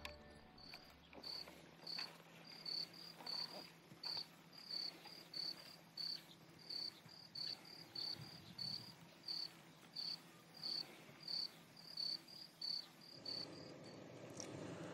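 A cricket chirping faintly, with short high chirps about twice a second; the chirping stops near the end.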